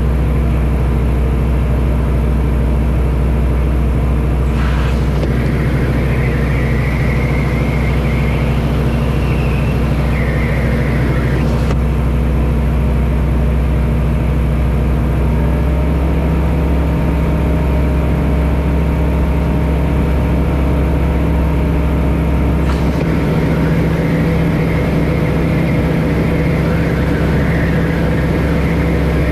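Aquila A210 light aircraft's propeller and engine running steadily in flight, heard from inside the cockpit. The engine note shifts about halfway through.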